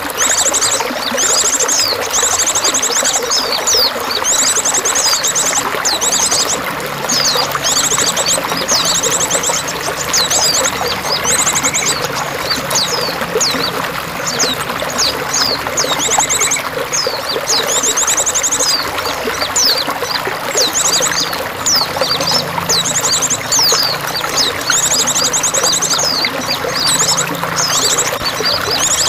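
Running water pouring and splashing steadily, with small songbirds chirping over it and repeating fast, high trills every few seconds.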